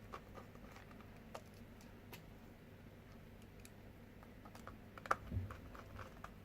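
Faint, scattered small clicks and light taps of a screwdriver and small plastic parts being handled while screws are put back into a sat-nav's housing, with a slightly louder click and a soft thump about five seconds in.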